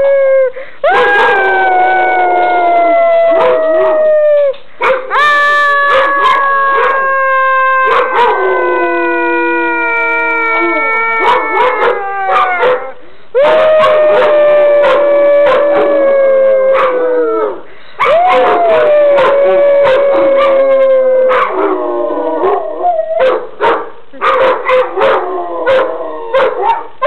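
Weimaraners howling in a chorus of overlapping voices. Each long howl is held for several seconds and slides slowly down in pitch. Near the end the howls break up into shorter, choppier calls.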